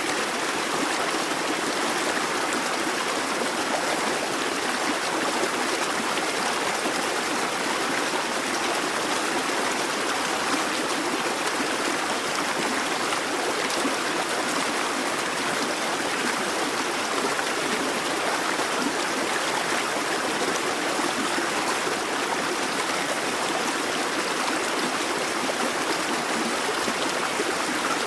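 A busy babbling brook: water running steadily over rocks, a continuous rushing and burbling.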